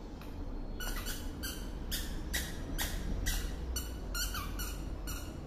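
A dog biting down again and again on a plush squeaky toy, squeezing out about a dozen short, high squeaks in an uneven rhythm that begin about a second in.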